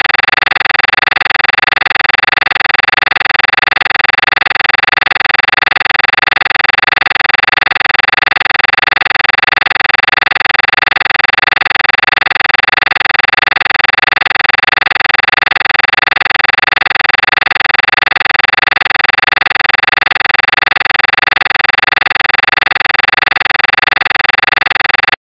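A loud, steady electronic buzz of many fixed tones held without any change, cutting off suddenly near the end.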